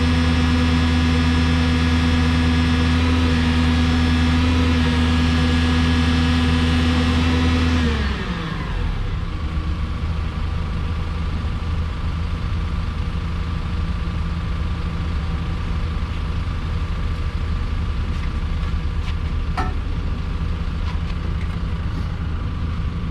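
Yale 175 VX forklift's diesel engine held at raised revs, then about eight seconds in dropping back with a falling pitch and idling steadily. It is being run up to heat the exhaust so the NOx sensors warm up enough to read.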